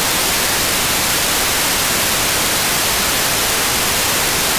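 Loud, steady FM radio static: an SDR receiver tuned to the ISS amateur downlink on 145.800 MHz, hissing with no station transmitting.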